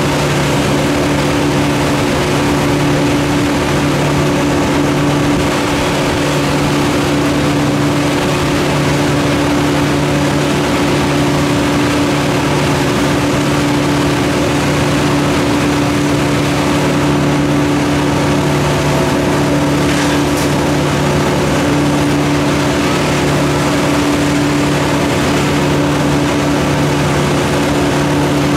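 An engine running steadily at one constant speed, with an even hum and no change in pitch.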